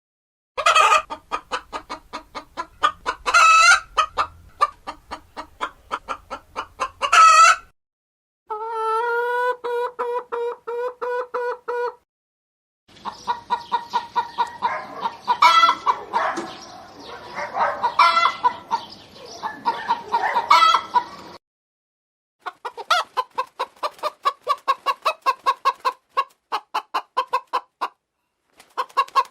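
Hens clucking in quick runs, with occasional louder, higher squawking cackles. The sound comes in four stretches broken by short silences.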